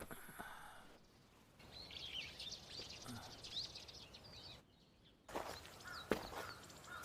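Faint outdoor ambience that changes abruptly between stretches: small birds chirping in quick high calls through the middle, then after a short quiet gap a few sharp clicks or knocks with more chirps.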